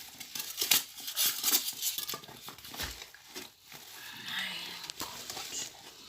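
Packaging being unwrapped by hand: irregular crinkling, rustling and tearing of wrapping, with small clicks and knocks.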